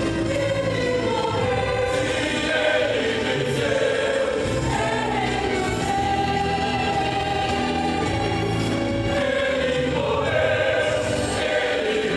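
Youth choir singing a gospel hymn, the voices holding long sustained notes.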